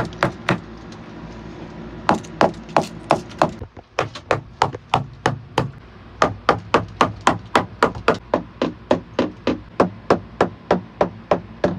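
Hammer tapping the old wooden deck beams overhead inside a wooden boat's hull, sounding the wood for rot. A few sharp knocks come at the start, then after a pause of about a second and a half a steady run of knocks at about three a second.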